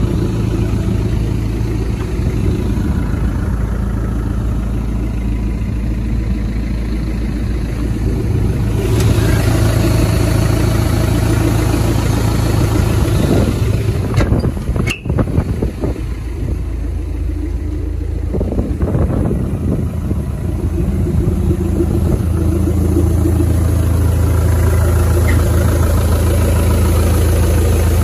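Caterpillar 3064T four-cylinder turbo diesel of a Cat 312CL excavator running steadily, with a single sharp click about halfway through; the engine note sits a little lower in the last few seconds.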